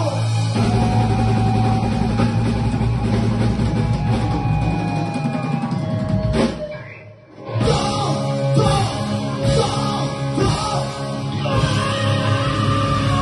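Live rock band playing loud: electric guitars, drum kit and vocals. About six seconds in the music drops out briefly, then the band comes back in with a run of accented hits.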